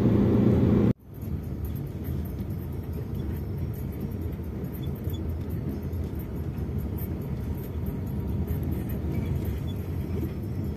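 Low, even rumble of a car driving, heard from inside the cabin. About a second in, a louder steady hum cuts off abruptly and leaves the quieter rumble.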